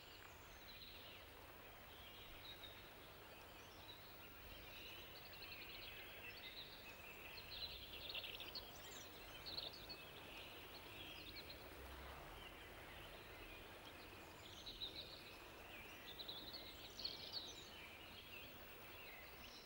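Faint outdoor ambience with small birds chirping and singing on and off.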